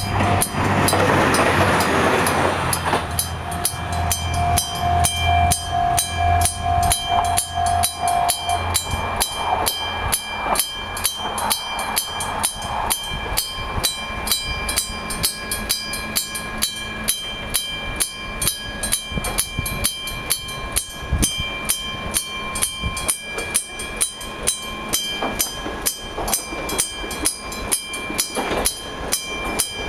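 Japanese level-crossing warning bell, an old-style electric bell, ringing in rapid, even strokes. A train runs over the crossing in the first few seconds, and its low rumble and hum die away by about eight seconds in.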